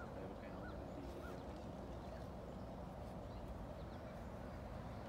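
Steady low outdoor background noise, with a faint high chirp repeating about every half second during the first second or so.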